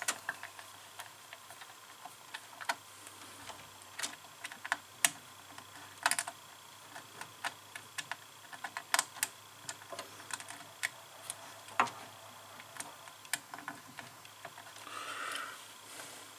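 Irregular small clicks and ticks of wire ends and a small screwdriver working the screw terminals of a CNC controller's breakout board, over a faint steady hum.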